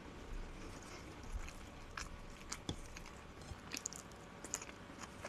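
A person chewing and biting a forkful of chopped mayonnaise salad, with soft scattered clicks.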